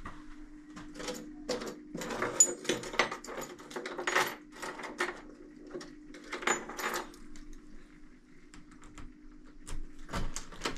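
A bunch of keys jangling and clicking in short, irregular bursts, with a steady low hum underneath.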